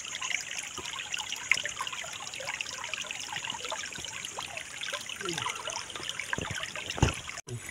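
Shallow stream trickling steadily over rocks, with a single low thump about seven seconds in.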